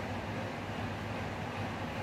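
Steady low hum under an even hiss, with no distinct strokes.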